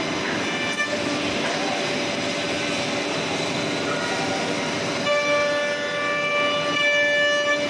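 CF-MASTERT2-16 five-axis CNC router's spindle and cutter milling a curved wooden part. A steady cutting noise, joined about five seconds in by a strong, steady high whine with overtones.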